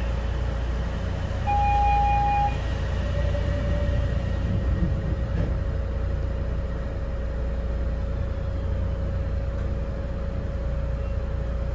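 Cabin noise inside a Kobe Port Liner rubber-tyred automated guideway transit car: a steady low rumble with a constant hum. A single electronic beep lasting about a second sounds about a second and a half in.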